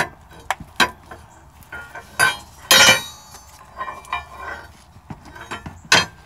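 Steel pry bar clinking and knocking against the truck's steering linkage as it is worked into position to lever on the joints, with one louder ringing clank about three seconds in and another sharp clank near the end.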